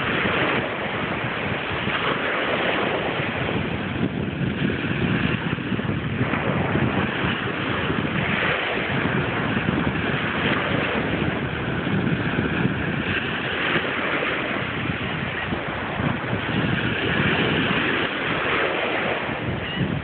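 Small waves breaking and washing up onto a sandy beach in a steady rush of surf, with wind on the phone's microphone.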